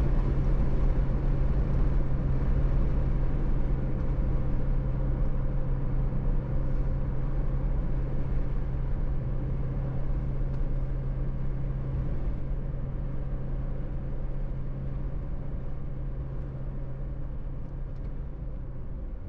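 Car driving on a highway: steady engine and tyre drone with a constant low hum, easing off and getting gradually quieter through the second half.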